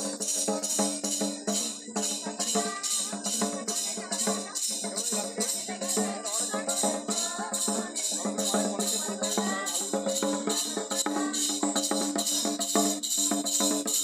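Music with a steady jingling percussion beat over a sustained low drone, with a melody line wandering above it.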